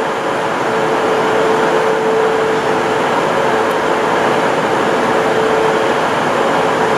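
Train noise: a steady drone with a constant mid-pitched hum.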